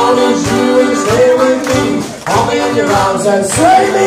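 Live band music played loud, a steady drum beat under a melody line, dipping briefly in loudness about two seconds in.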